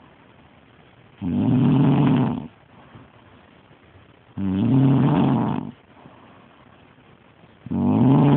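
A woman snoring in a slow, regular rhythm: three low-pitched snores, each about a second long, coming roughly every three seconds.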